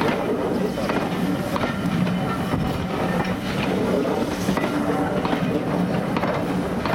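Passenger coaches of a preserved steam-hauled train rolling past, with a steady rumble of wheels on rail and scattered clicks as the wheels pass over rail joints.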